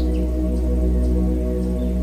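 Ambient new-age music with a deep steady drone under layered held tones. A few faint high chirps come at the very start.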